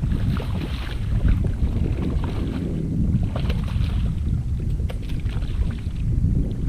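Wind buffeting the microphone in a steady low rumble, with scattered small clicks and rustles over it.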